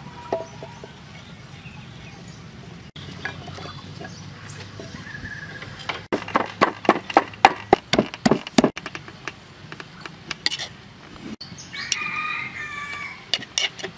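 Pestle pounding ingredients in a mortar: a quick run of about a dozen sharp strikes, roughly four a second, in the middle. Near the end a chicken calls once over the steady background.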